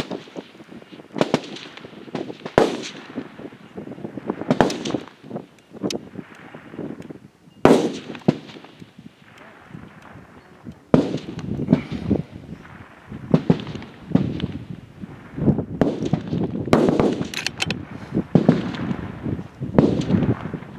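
Rifle shots from several F-Class rifles on a 600-yard firing line, about a dozen cracks at irregular intervals, each trailed by an echo.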